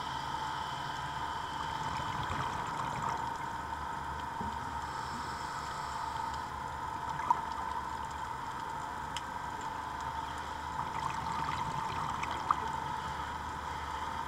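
Underwater ambience heard through a camera housing: a steady wash of water noise with a constant hum, broken by a couple of sharp clicks about halfway through and near the end.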